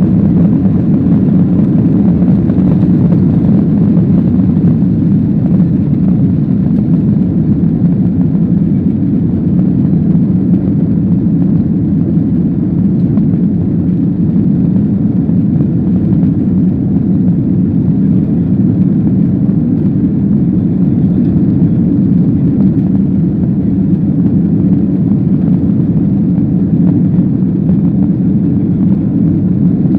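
Steady, loud rumble of a Boeing 737-800's CFM56-7B jet engines and airflow heard inside the passenger cabin, with no rise or fall in pitch.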